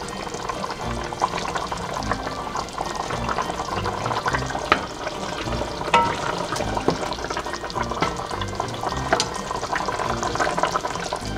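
Thick chicken korma gravy bubbling and spattering as it simmers in a pot, with a wooden spoon stirring through it; soft background music runs underneath.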